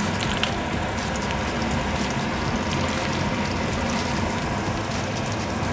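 Beef pieces sizzling in fat on an electric grill plate: a steady hiss with small crackles and pops.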